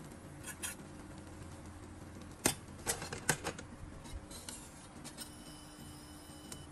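A handful of sharp clicks and taps of kitchen utensils against a nonstick frying pan, the loudest about two and a half seconds in, over a faint steady hum.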